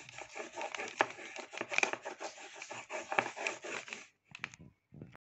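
Pen scribbling on a sheet of paper over a plastic high-chair tray: fast, scratchy back-and-forth strokes that stop about four seconds in, followed by a few light taps.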